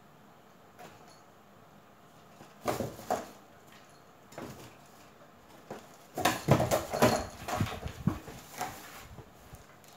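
A cardboard box scraping and knocking as a kitten scrambles in it and bats at its flap: two bumps about three seconds in, then a busy run of rustles and thumps lasting about three seconds.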